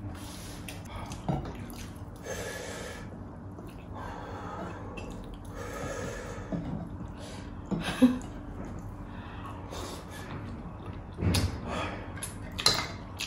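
Close-up eating sounds: chewing and audible breaths, with a few sharp clicks and knocks of plates and utensils.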